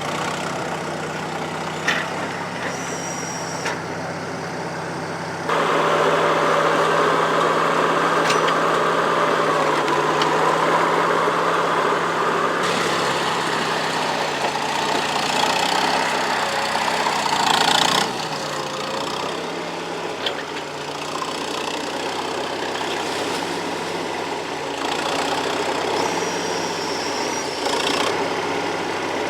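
Skid steer engine running steadily. It gets louder and busier from about five seconds in, as if working under load, then settles back near eighteen seconds in.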